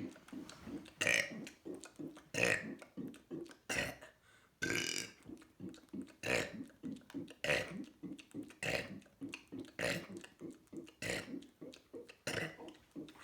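A person burping over and over, a loud burp roughly every second with smaller ones in between, and one longer burp about five seconds in.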